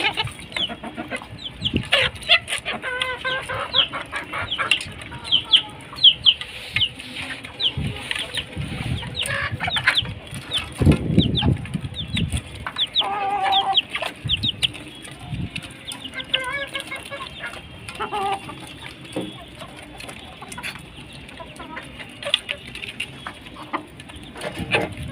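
Domestic chickens clucking and calling among many high, short peeps.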